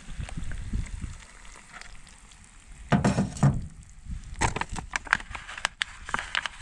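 Camp cooking gear being handled while a meal is made: a few knocks about three seconds in, then a quick run of sharp clicks and clatter.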